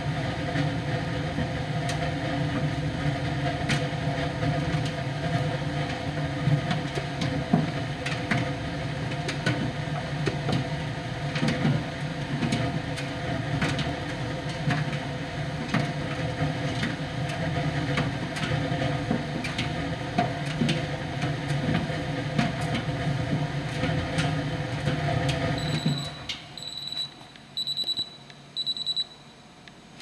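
Miele PT 5136 tumble dryer running, with a steady hum from the drum and fan and scattered light clicks, until it stops abruptly near the end. Four short, evenly spaced high beeps then sound: the end-of-cycle signal.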